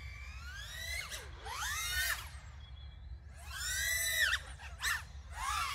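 Speedybee Bee25 2.5-inch cinewhoop's brushless motors and ducted propellers whining, the pitch swooping up and falling back with about four quick throttle punches.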